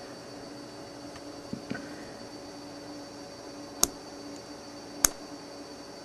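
Spring-assisted folding knife being worked by hand: two faint clicks, then two sharp metallic clicks a little over a second apart as its latch and spring-driven blade snap.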